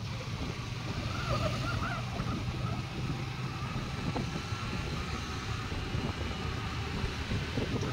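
Scooter ridden at a steady cruise: a low, even engine hum under wind and road noise.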